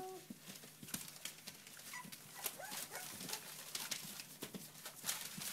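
English bulldog puppies scuffling on newspaper, the paper crackling and rustling in many small sharp crackles. A puppy whine trails off right at the start, and a short puppy squeak comes about two seconds in.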